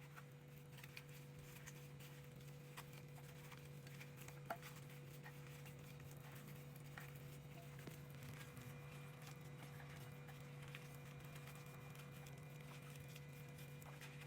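Faint steady hum with scattered light taps and clicks.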